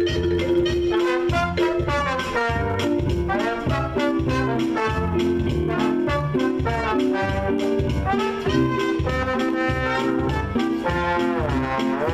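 Live swing band playing an up-tempo brass-led number, horns carrying the melody over a bouncing bass line. Near the end a sliding note dips down and comes back up.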